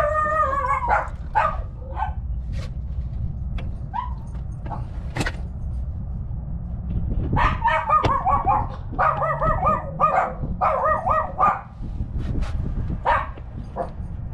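An animal's short, repeated calls: a few near the start, then a quick run of them about halfway through, over a steady low rumble.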